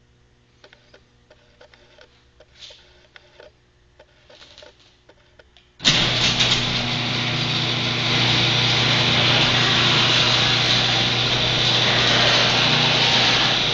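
Faint clicks over a low hum, then about six seconds in an electric garage door opener starts with a sudden loud onset and runs steadily as its motor drives the door.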